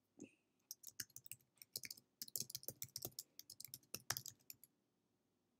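Faint typing on a computer keyboard: a quick run of key clicks that stops about four and a half seconds in.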